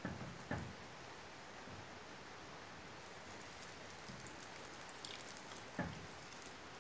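Hot oil sizzling steadily around a konda kavum deep-frying in a small pan, with a few short knocks of the skewer and ladle against the pan: at the start, about half a second in, and near the end.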